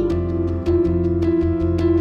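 Background music with held low notes and a quick, even pulse of about five beats a second.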